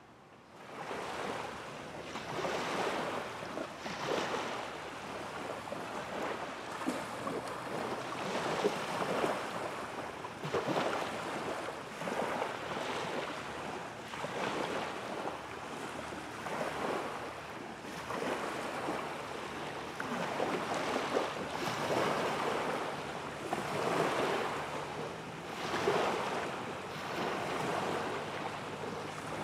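Small waves washing in on the shore, rising and falling in irregular surges every second or two.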